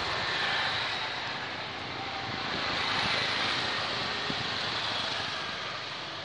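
Motorcycle and road traffic passing, a steady noisy hum that swells slightly about three seconds in.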